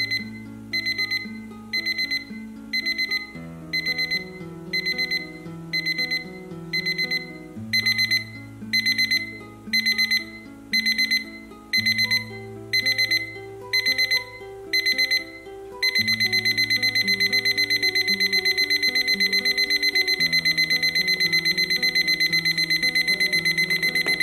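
Braun BC02X travel alarm clock's electronic alarm beeping: short bursts of high beeps about once a second, then from about two-thirds of the way through a continuous fast beeping. It cuts off suddenly at the end as a finger presses the top of the clock.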